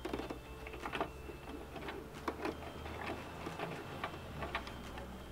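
Light, irregular clicks and ticks from handling at a domestic sewing machine, with the machine no longer sewing, over a low steady hum.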